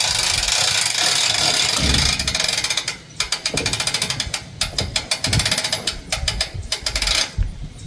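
Rapid ratchet-like metallic clicking for about three seconds, then slower, irregular clicks that stop shortly before the end.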